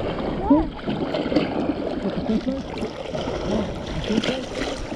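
Seawater sloshing and splashing close to the microphone, with a brief pitched cry about half a second in.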